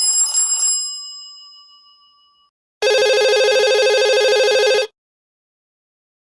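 Stock Android phone tones played back to back. First a chime that rings out and fades over about two seconds. Then, after a short gap, a steady two-second electronic ringing trill that stops abruptly.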